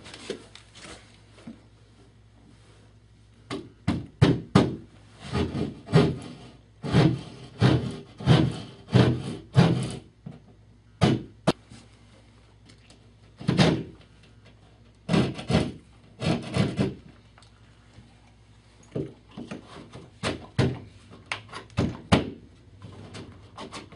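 Hand saw cutting an outlet-box hole in a wall: a run of short rasping strokes in several bursts, with quiet pauses between them.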